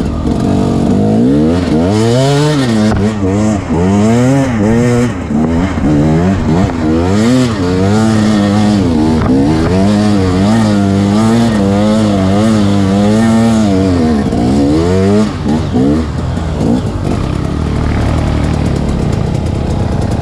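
KTM 250 EXC two-stroke dirt bike engine, revved up and down over and over as the rider works the throttle along a muddy trail, with a steadier stretch in the middle; after about fifteen seconds it drops back to a lower, even running note.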